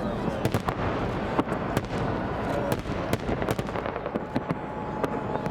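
Fireworks display: a dense run of sharp cracks and bangs, several a second and irregular, over a continuous low rumble of launches and bursts.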